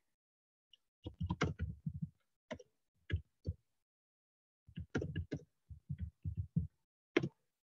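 Typing on a computer keyboard: quick irregular runs of key clicks, pausing briefly partway through, then a final single tap near the end.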